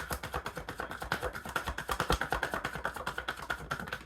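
A tarot deck being shuffled by hand: a rapid, even run of soft card clicks that stops abruptly near the end.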